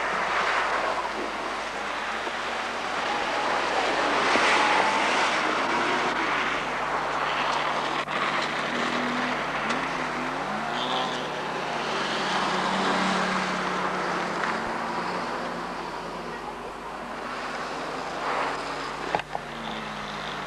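Car engines running on a race circuit, their notes rising and falling as the cars rev and pass, over a steady low hum.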